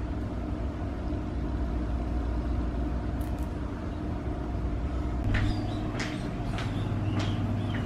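Gold high-heeled shoes clicking on a tile floor in a steady walk, a step about every 0.6 seconds, starting about five seconds in, over a steady low hum.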